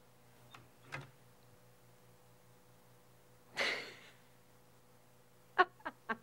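A woman's breathy snicker, then a few short bursts of laughter near the end, over a low steady room hum.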